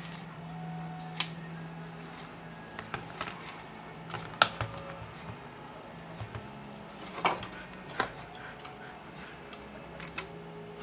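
Scattered sharp clicks and knocks of an armature and locking pliers being handled and set down on a hard workbench, the loudest about halfway through, over a steady low hum.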